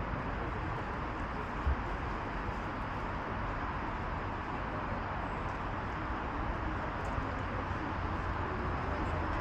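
Steady outdoor background noise, an even rush with a low rumble underneath, as of distant traffic, with one short soft thump about a second and a half in.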